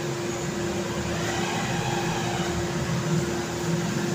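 A steady mechanical hum with one constant low tone over a rumbling noise.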